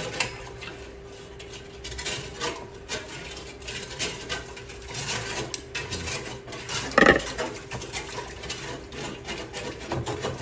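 Utensil clinking and scraping in a stainless steel pot of pickling brine with pickling spice stirred in, in a run of small irregular clicks and scrapes with one louder knock about seven seconds in, over a steady low hum.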